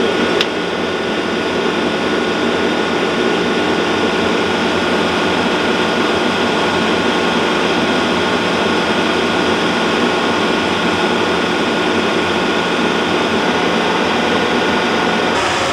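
Tractor engine running steadily, a loud, even mechanical drone with a single sharp click about half a second in.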